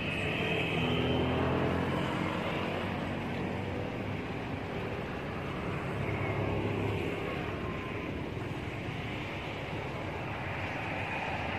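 Low hum of a motor vehicle engine running, fading out about seven seconds in, over a steady haze of outdoor noise.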